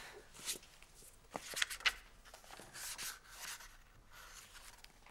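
A paperback book being handled and opened, its pages rustling as they are leafed through, with a few light clicks.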